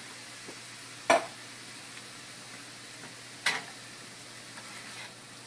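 Ground beef, peppers, onions and kidney beans frying in a nonstick skillet with a low, steady sizzle. Two sharp knocks, of the spatula striking the pan, come about a second in and again about three and a half seconds in.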